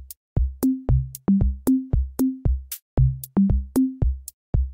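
Background music: an electronic drum-machine beat with a bouncing bass line stepping between a few low notes, and hi-hat ticks over it.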